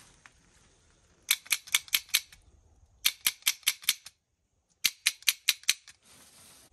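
Three quick runs of five or six sharp clicks, about five a second, with short pauses between runs: a click-training signal telling the black-throated monitors that food is coming.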